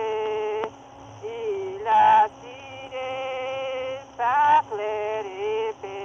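A man singing an unaccompanied French folk ballad in long held notes that slide from one pitch to the next, on a 1930s wax-cylinder recording: the sound is thin and narrow, with a steady faint hum and hiss underneath.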